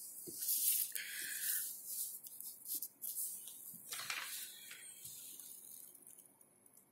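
Faint rustling with a few soft clicks, dying away to near silence near the end.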